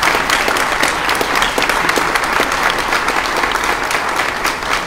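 Large seated audience applauding, many hands clapping at once in a steady, dense patter.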